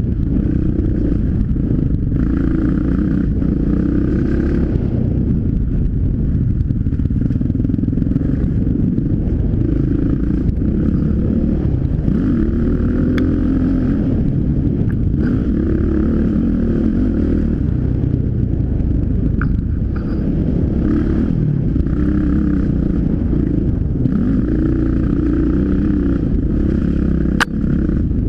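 Yamaha dirt bike's engine under way, its pitch rising and falling over and over as the throttle is worked. A few sharp knocks cut in, the loudest near the end.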